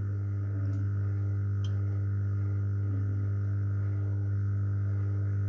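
Steady low electrical hum with a stack of evenly spaced overtones from a hot air rework station running while it heats the phone's glass back cover to soften the adhesive. Two faint clicks come in the first two seconds.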